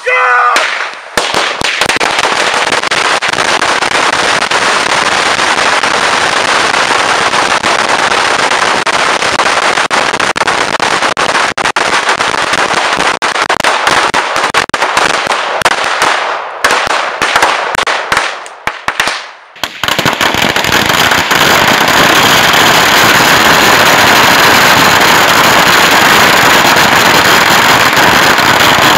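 A mass of bundled firecracker bricks, about ten thousand small firecrackers, going off together in a continuous dense crackle of rapid bangs. About sixteen seconds in the crackle thins to scattered pops, then a few seconds later it picks up again, denser and louder, and holds steady.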